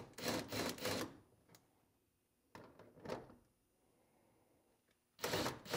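Cordless impact driver running in several short bursts as it backs out the bolts holding the upper radiator fan shroud. There is a cluster of bursts in the first second, two shorter ones around the middle and another near the end, with quiet gaps between.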